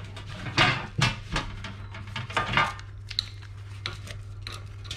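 Handling noise as a LiPo battery pack with trailing leads is pulled out of a metal tray: a few knocks and rustles in the first three seconds, then light ticks, over a steady low hum.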